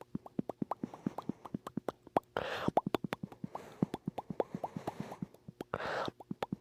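A rapid run of mouth pops, about seven or eight a second, their pitch wandering up and down from pop to pop. Two short breaths fall between them, about two and a half seconds in and near the end.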